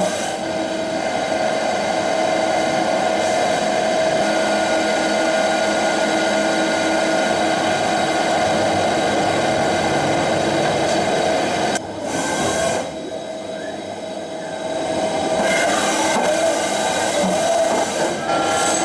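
CNC milling machine cutting metal with a large-diameter milling cutter: a steady, high whine over a dense grinding hiss. About twelve seconds in it drops away for roughly three seconds, then the cutting sound returns.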